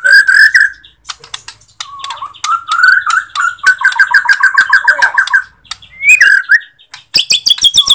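Bornean white-rumped shama singing loudly: varied whistled phrases, then a fast trill of about ten repeated notes a second, and near the end a rapid run of sharp ticks breaking into high chattering notes.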